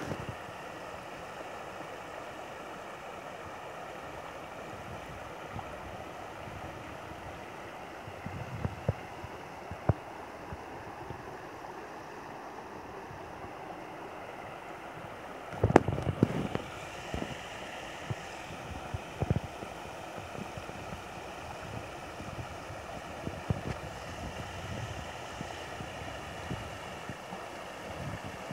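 Shallow river flowing over stones and old wooden piles: a steady rush of rippling water. A few brief knocks and bumps on the microphone, the loudest about sixteen seconds in.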